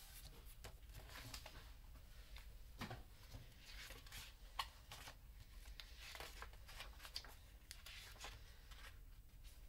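Faint rustles and soft taps of a hardcover picture book being handled and its paper pages turned, over a low steady hum.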